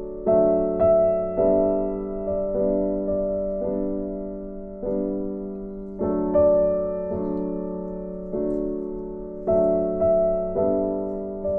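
Background piano music: slow chords and notes, each struck and left to fade before the next.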